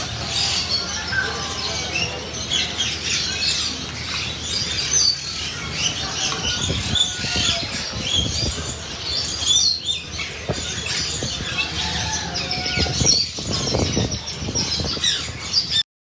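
A roomful of caged budgerigars and other small parrots chirping and chattering at once in a dense, unbroken din, with a few louder squawks; the sound cuts off suddenly near the end.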